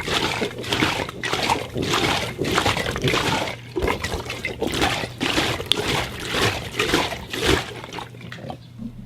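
Rubber gloves being rubbed and worked in a quick, irregular series of squeaky, rubbing strokes, about two a second, dying down near the end.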